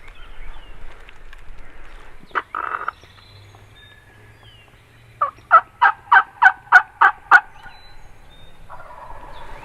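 Wingbone turkey call yelping: a run of eight loud, evenly spaced hen yelps about three a second, made to call the gobbler in. A short rustle comes about two and a half seconds in.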